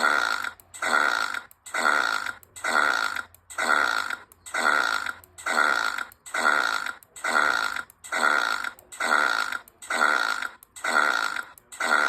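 Cartoon character Timon's voiced belch, the same loud burp repeated one after another about every 0.8 seconds, each starting sharply and trailing off.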